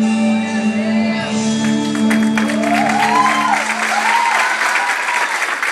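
Music with long held notes fades out as an audience breaks into applause about two seconds in; by near the end only the applause remains.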